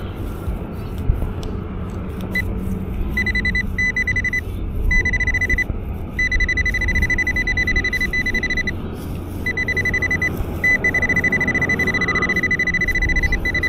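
Nokta AccuPoint pinpointer sounding a steady high beep in on-and-off stretches, then holding it for the last few seconds, as it is worked over a shallow buried target. A low rumble runs underneath.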